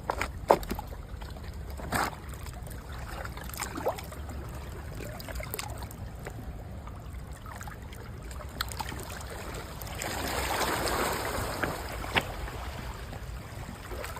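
Water running at a dam, a steady low rumble, with scattered sharp clicks and knocks of fishing gear being handled. About ten seconds in, a louder rush of water noise swells for a couple of seconds.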